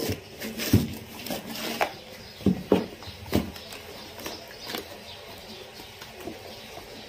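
German shepherd puppy chewing and tearing at a cardboard box and its plastic wrapper: irregular crinkling and crackling, with several louder crunches in the first three seconds, then quieter.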